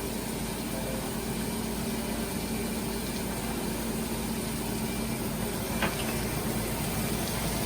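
A household appliance running with a steady hum and whir, with one faint click about six seconds in.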